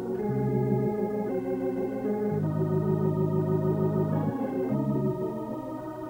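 Organ music: sustained chords that change about every second, with a deep bass note held for about two seconds in the middle.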